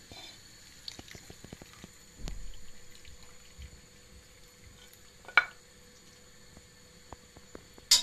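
Metal ladle scooping boiled meat and broth from a stainless steel pot: liquid splashing and dripping with small clinks, and one sharp clink of the ladle on the pot about five seconds in.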